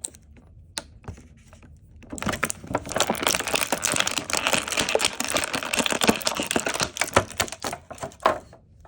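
Rapid clicking and crinkling of plastic as a small action figure and its accessories are handled and worked out of their plastic packaging. A few clicks come first, and a dense run of clicks starts about two seconds in and lasts until near the end.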